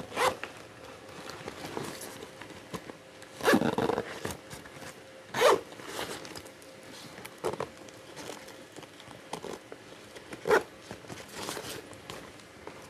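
Zipper on a Firecast fishing bag pulled in short runs every second or two, with the rustle of the bag's fabric and straps being handled between them.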